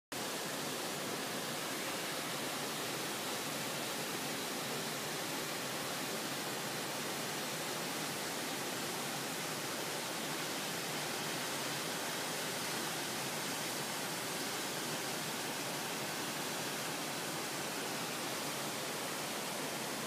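Rushing water of a waterfall and the rocky stream below it: a steady, even hiss with no change in level.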